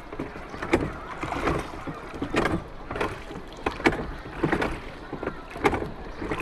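A run of sharp knocks or strikes, roughly one or two a second and unevenly spaced, over a steady rumbling background noise.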